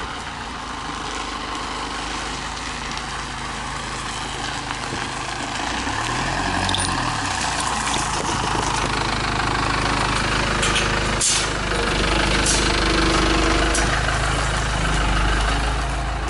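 Motorhome engine idling, growing louder as it comes closer, its pitch briefly rising and falling about six seconds in. A single sharp click comes about eleven seconds in.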